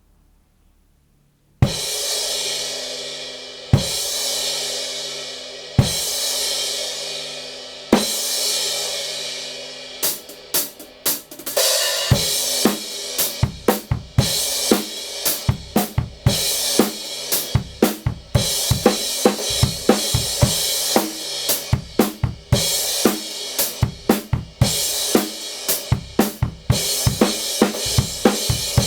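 Kingdo Artist Modern 17-inch crash cymbal struck alone four times, about two seconds apart, each crash left to ring and fade. From about ten seconds in, it is played in a drum-kit groove with snare, bass drum and hi-hat, crashes riding over the beat.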